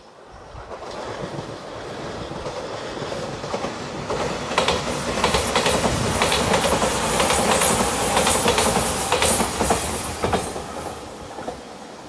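A five-car JR Shikoku Shiokaze limited-express electric train approaching and passing close by, its wheels clacking rhythmically over the rail joints. It builds up, is loudest around the middle, and fades as it pulls away near the end.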